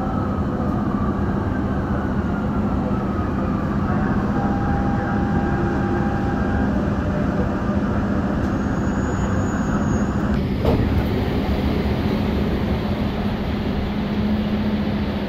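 Metro train interior: a steady rumble and hum, with the motors' whine falling in pitch in the first few seconds as the train slows for a station stop. About ten seconds in there is a click and a rise in hiss.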